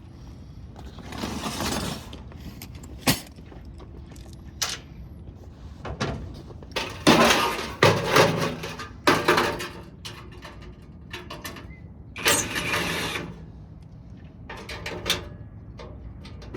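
Metal clanking and scraping from taking apart a parking lot light fixture: several bursts of rattling and scraping with a few sharp single knocks, the loudest run of clatter about seven to nine seconds in.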